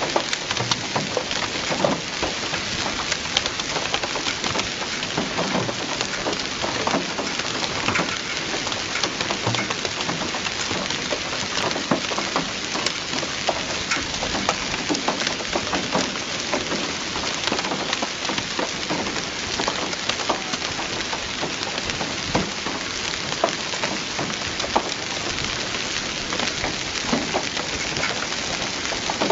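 Steady rain falling, with many separate drop hits ticking over an even hiss.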